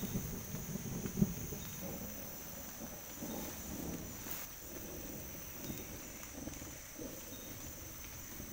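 Thunder rumbling and dying away over the first second or two, under a steady high drone of forest insects that runs on once the rumble fades, with faint regular chirps.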